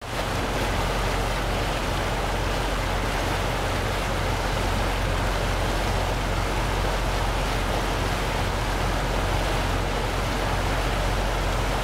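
Water rushing and splashing steadily along the hull of the WWII landing craft LCI-713 as she moves under way, with a steady low hum underneath.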